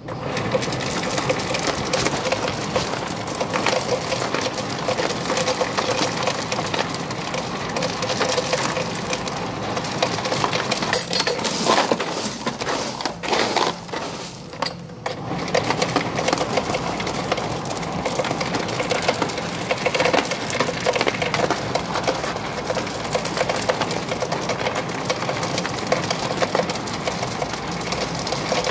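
Ice cubes pouring from a soda fountain's ice dispenser chute into a plastic bag, a continuous rattling clatter over a steady hum, breaking off briefly about halfway through before it resumes.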